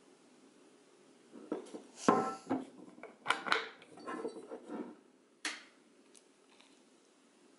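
Electric kettle and ceramic mug being handled: a cluster of clicks, clunks and knocks for about three and a half seconds, the loudest near the start, then a single sharp click about five and a half seconds in. No water is poured.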